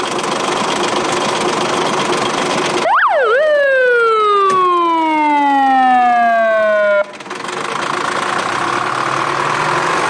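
Fire tanker truck's engine running, with its siren giving a quick up-and-down whoop about three seconds in, then sliding slowly down in pitch for a few seconds before cutting off suddenly; the engine keeps running after it.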